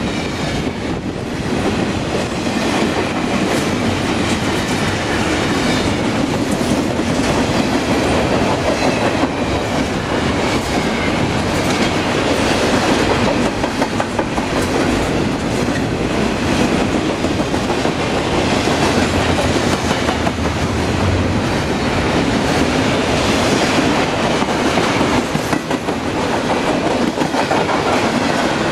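Empty double-stack intermodal well cars of a BNSF freight train rolling past, loud and steady. Their steel wheels clack rhythmically over the rail joints.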